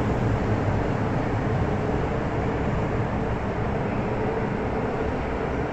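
MTR Tsuen Wan line M-Train electric multiple unit pulling out of an underground station. Its steady running rumble and hum slowly fade as the last cars leave the platform for the tunnel.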